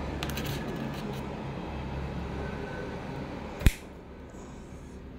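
Hum and hiss from a live microphone channel through an amplifier, slowly fading, with a few light clicks early on and one sharp knock picked up by the open microphone about three and a half seconds in.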